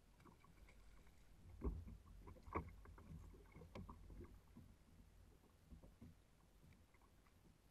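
Faint handling sounds aboard a kayak during a fish fight: two sharp knocks about a second and a half in and again a second later, and scattered light clicks as the rod and reel are worked, over a low rumble of wind and water.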